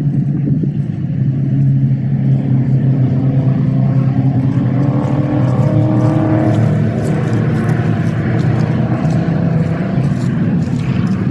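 Engines of several historic racing cars on the circuit, a steady drone throughout, with an engine note that rises and then falls about midway as the pack drives past.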